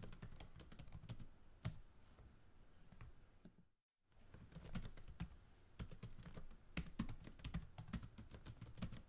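Faint typing on a computer keyboard: an irregular run of key clicks, broken by a brief silence about four seconds in.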